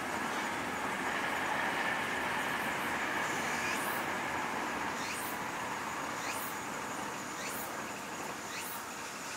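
Steady background rumble, with an insect calling in short rising chirps about once a second from about a third of the way in.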